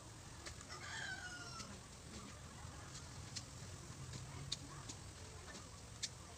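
A chicken gives a single falling call lasting about a second, about a second in. Scattered sharp clicks and snaps follow, the loudest two near the middle and near the end, over a low steady background hum.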